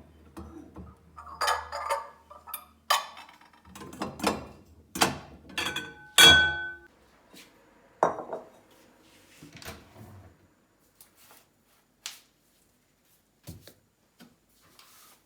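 Dishes and glassware being handled and set down, a run of knocks and clinks; the loudest clink, about six seconds in, rings briefly like glass or china. A few faint taps follow near the end.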